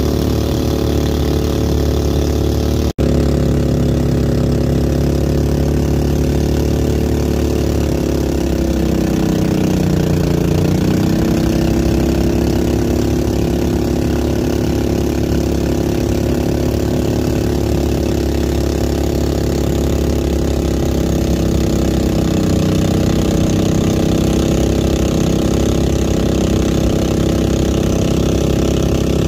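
Engine of a motorized bangka (outrigger boat) running steadily, its pitch dropping and picking back up about ten seconds in.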